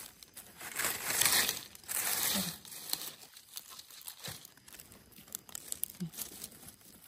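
Dry leaf litter and soil rustling and scraping under a hand brushing and digging at the ground, loudest in the first two and a half seconds, then lighter scattered crackles.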